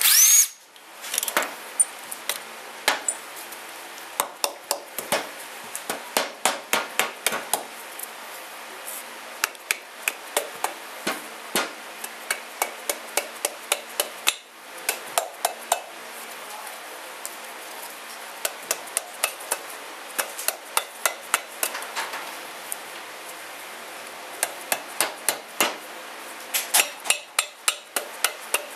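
Red plastic-faced mallet knocking repeatedly on a KTM RFS engine's aluminium cylinder to break it free of the cylinder head, in runs of sharp knocks several a second with short pauses. A brief loud rising whine at the very start.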